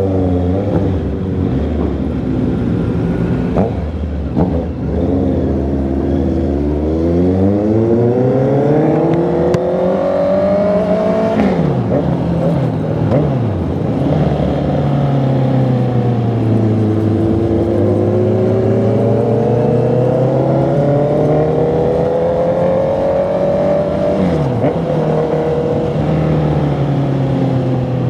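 Honda CB650R's inline-four engine and exhaust under way, revs climbing steadily for several seconds and then dropping sharply at gear changes about halfway through and again near the end, with a steadier stretch in between.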